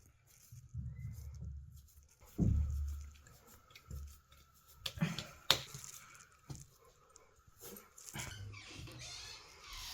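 A dog's vocal sounds, irregular and low, with a falling cry early on and a few sharp knocks, the loudest about halfway through; music comes in near the end.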